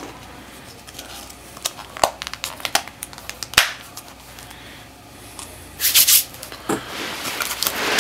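Small plastic deli cup and its lid clicking and tapping as they are handled and closed, with scattered sharp clicks, then newspaper packing crinkling near the end.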